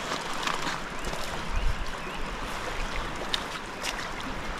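Steady rush of a river flowing over a stony bed, with a few short ticks and a brief low bump about a second and a half in.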